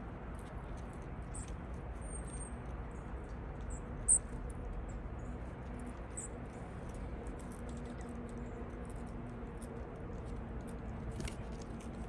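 Small birds chirping: many short, high chirps scattered throughout, one much louder about four seconds in, over a steady low background rumble.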